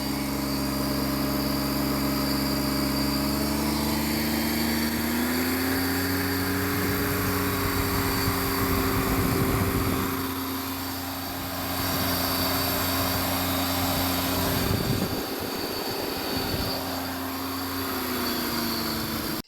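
An engine running steadily, its speed rising about five seconds in and dropping back near the end.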